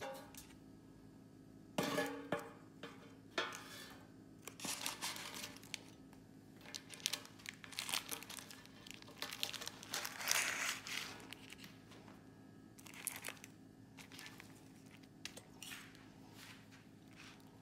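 Parchment paper crinkling as a banana loaf is lifted out of a metal loaf pan by its paper lining, in bursts, densest around the middle. A knock of the metal pan about two seconds in.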